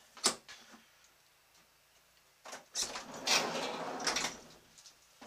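A minivan's sliding side door: a sharp click of the latch, then about two seconds later the door rolling along its track.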